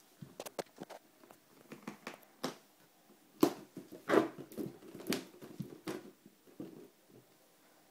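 A balloon being knocked and rubbed about, giving irregular soft taps and short squeaks, with the loudest hits a little after three and four seconds in.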